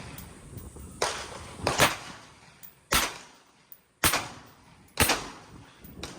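Five gunshots about a second apart, each followed by a short echoing tail.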